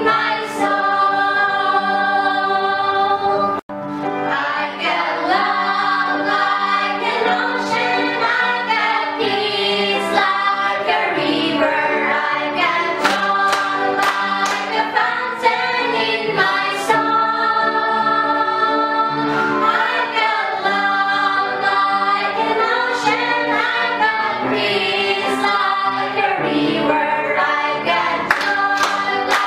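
A group of voices singing a Christian praise song in chorus, with sharp claps at points. The sound cuts out completely for a moment about three and a half seconds in.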